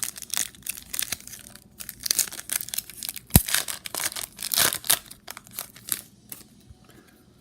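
Trading-card pack wrapper being torn open and crinkled by hand: a dense run of crackling and rustling with one sharp snap about halfway through, easing off near the end.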